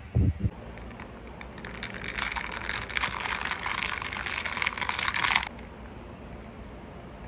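Ice cubes clinking and rattling against the inside of a glass mason jar of iced coffee as it is stirred, for about four seconds. A couple of low knocks at the start as the jar is handled on the table.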